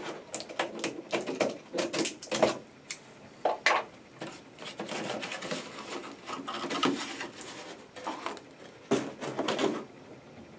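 Scissors slitting the packing tape on a small cardboard box, then its flaps pulled open and the cardboard handled: a run of irregular short rustles and scrapes.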